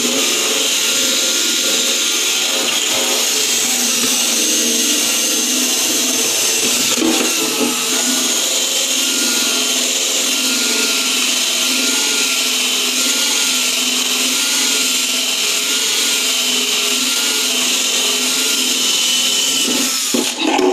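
Milwaukee drill spinning a polishing pad against a plastic tail light lens, a steady motor whine with a slightly wavering pitch, polishing out paint scuffs and oxidation. The drill stops suddenly at the very end.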